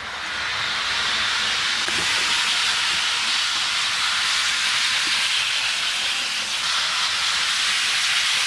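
HO scale Piko ICE 3 model train running fast on sectional track: a steady hiss of motor and wheels that swells over the first second as the throttle is turned up, then holds.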